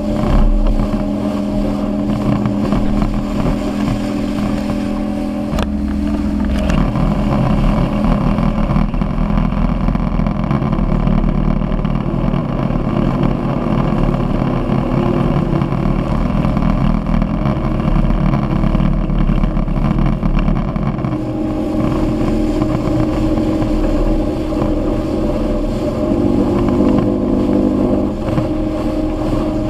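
Evinrude outboard motor running at speed while pulling a towed tube, with the wake rushing and splashing behind the boat. The steady engine note is partly buried by water and spray noise through the middle stretch and comes through clearly again near the end.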